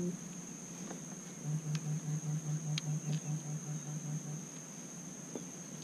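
Steady high-pitched insect buzz from the marsh, like crickets. A low hum pulses about five times a second for a few seconds in the middle, with a few faint clicks.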